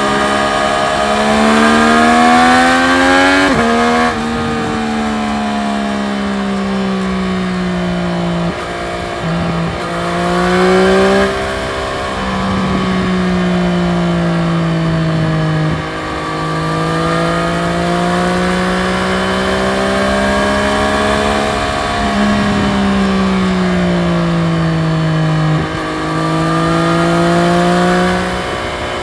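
Triumph Street Triple RS three-cylinder engine under way, its pitch rising and falling with the throttle. The pitch breaks off briefly several times as gears are changed, with wind rushing past underneath.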